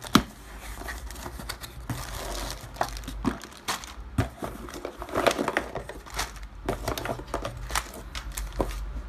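A clear plastic bag crinkling as it is lifted out of an opened cardboard box and rummaged through, with irregular rustles, taps and clicks of cardboard and charger cables being handled.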